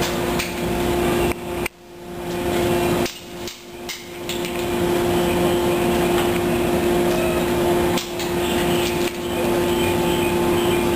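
Steady electrical hum from standing JR 113-series electric trains, one even tone over a background rumble, cutting out briefly a few times in the first few seconds.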